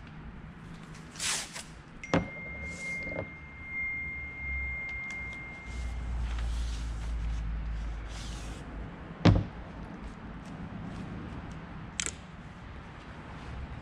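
Paper and masking tape being handled on a car's windshield: rustles and tape noises with several sharp knocks, the loudest about nine seconds in. A steady high tone sounds for a few seconds from about two seconds in.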